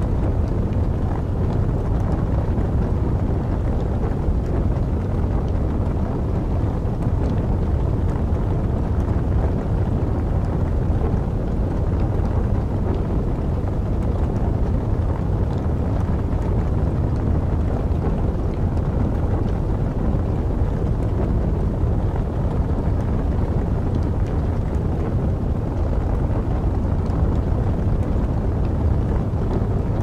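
Log fire burning: a steady low rush with faint scattered crackles.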